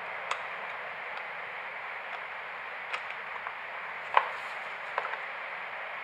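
A few sharp small clicks and knocks of a plastic handguard and tools being handled at a motorcycle handlebar, the loudest about four seconds in, over a steady background hiss.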